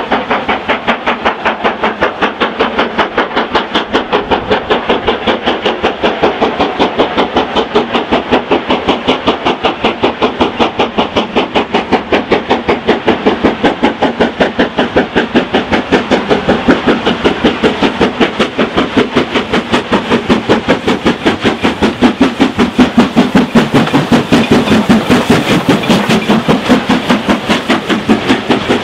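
LMS Black 5 4-6-0 steam locomotive working hard, its two-cylinder exhaust beating rapidly and evenly. It approaches with its train and grows louder as it draws level near the end.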